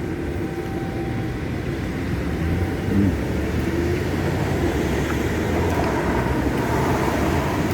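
Low, steady rumble of road traffic engines, slowly growing louder in the second half.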